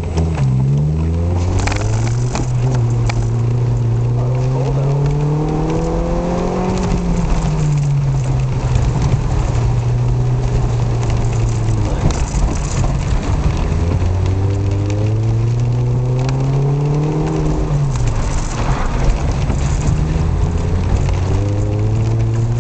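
Turbocharged Honda Civic Si engine under hard acceleration on an autocross course, its revs climbing, dropping sharply about seven and eighteen seconds in, and climbing again. Tyre and road noise from wet pavement runs underneath.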